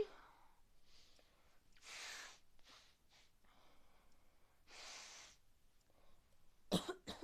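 Congested breathing from a person with a heavy cold between sneezes: two long, noisy breaths through a stuffy nose about three seconds apart, then a few short, sharp catches of breath near the end.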